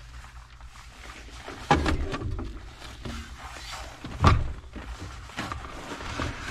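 Ski gear and a pack being loaded into a car's rear cargo area: a few thuds and clunks, the loudest about four seconds in, over a low steady hum.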